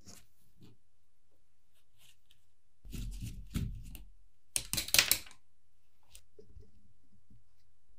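A nut driver working the nuts off the steel bracket of an old transformer: small metal clicks and a grinding scrape about three seconds in, then a short burst of sharp metallic clatter around five seconds in.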